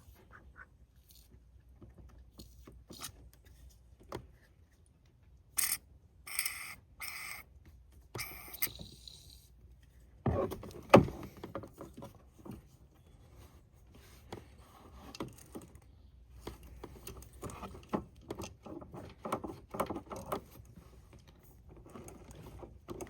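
Hand work on an ATV carburetor's seized choke cable: short sprays of WD-40 about 6 to 9 seconds in, then metal clicks, scrapes and one sharp clack as the stuck cable is worked.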